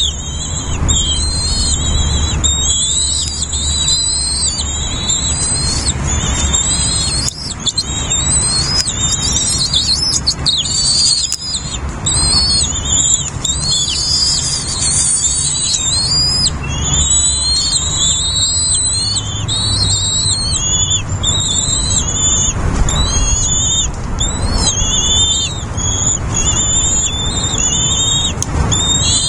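Nestlings begging: a continuous chorus of high, rapidly repeated squeaky chirps, over a low rumble.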